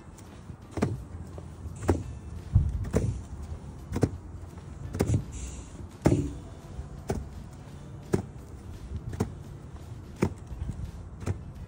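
Three flag-troop marchers stepping in unison on grass, their shoes striking the ground together about once a second in a slow, even cadence.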